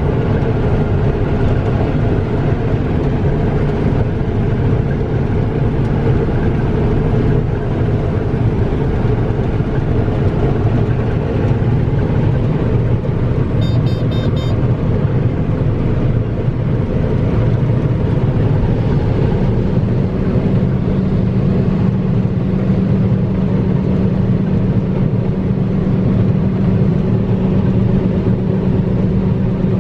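Farm machine's diesel engine running steadily under load. A short run of high beeps comes about 14 s in, and a deeper steady hum joins about 19 s in.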